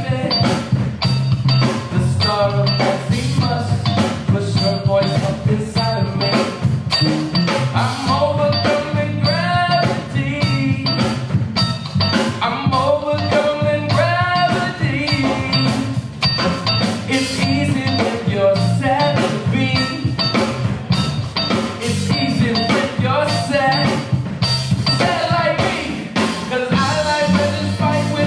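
Live rock band playing a song: drum kit keeping a steady beat, electric guitar, a prominent electric bass line, and sung vocals.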